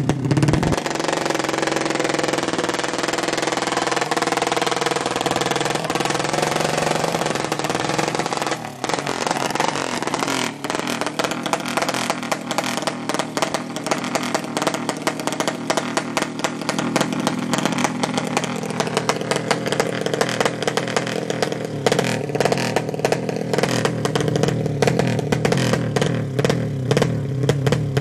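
200cc horizontal-cylinder ('sleep engine') drag bike engine revving hard while the bike is held at the start line. After a brief dip about eight seconds in, the note turns choppy and stuttering at high revs.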